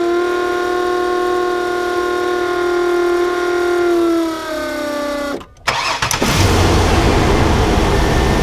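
Electric pre-oiler pump on a Ford 4.0L SOHC V6 whining steadily for about five seconds, priming oil pressure so the engine does not start dry; its pitch sags slightly near the end. Then the engine cranks, catches and runs, about six seconds in.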